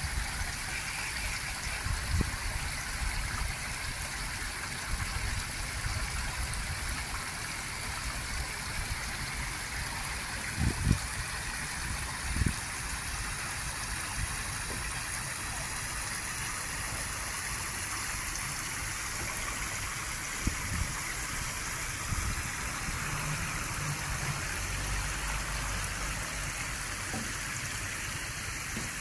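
Shallow stream water running and trickling steadily over stones, with a few brief low thumps along the way.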